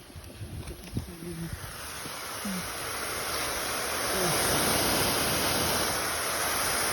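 K-Rain rotor sprinklers spraying water, a steady hiss that builds over the first few seconds and is loudest in the second half.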